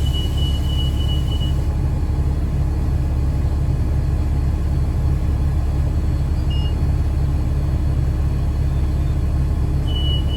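A 2009 Gillig BRT 40-foot transit bus with a Voith transmission, heard from inside the cabin: its engine and driveline make a steady, loud rumble. A thin, steady high whine sounds over it for the first second and a half and returns near the end.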